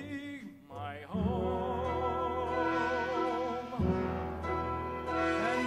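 Orchestral accompaniment of a stage musical: after a brief lull, sustained notes with vibrato come in over a low bass about a second in, moving to a new chord a few seconds later.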